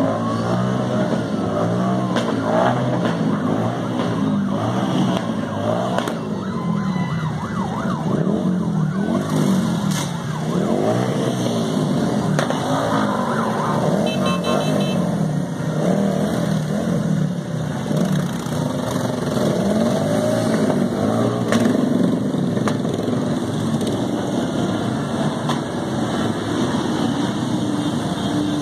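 A group of motorcycle engines running together at low speed, many pitches rising and falling over one another as the bikes throttle up and ease off.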